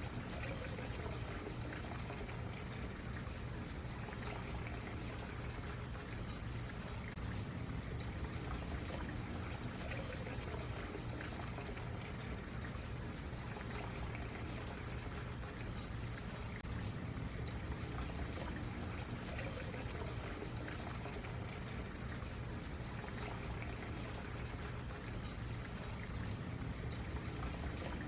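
Small stream running and trickling steadily over rocks.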